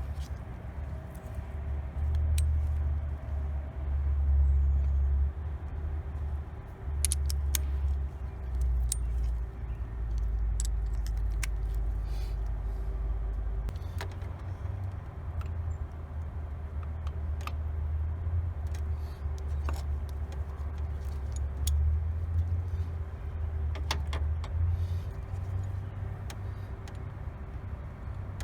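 Scattered clicks and light metallic clinks of hand tools working on a car engine, over a steady low rumble.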